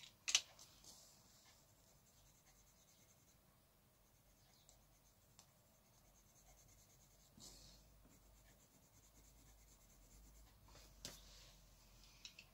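Faint scratching of an Inktense pencil lead shading on drawing paper, in light back-and-forth strokes. A sharp tap about a quarter second in is the loudest sound, and there are a couple of small clicks near the end.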